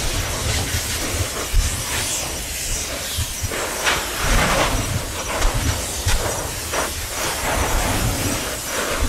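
Lava spatter cone of Kilauea's Fissure 16 erupting: a continuous rushing hiss of escaping gas, broken by irregular louder bursts as molten spatter is thrown out.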